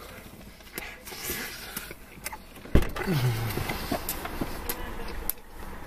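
Two men chewing big mouthfuls of burger, with small clicks and rustles of food handling. A sharp thump comes a little under three seconds in, followed by a short falling grunt through a full mouth.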